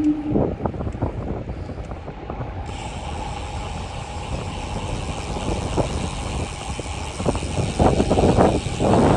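Downtown street traffic heard from a moving bicycle, over a steady low rumble, with a short steady low tone right at the start and louder ragged noise near the end.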